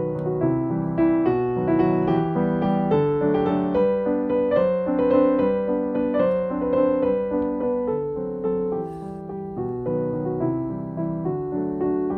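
Background piano music: a gentle melody of evenly paced notes.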